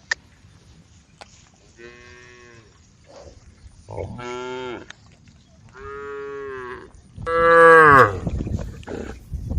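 Cows mooing on a road: four separate moos, the last one the loudest. Low, irregular thuds follow near the end.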